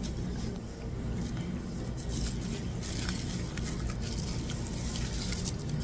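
Steady rush of water at a salon shampoo bowl, with the crinkle of aluminium highlighting foils being pulled out of wet hair.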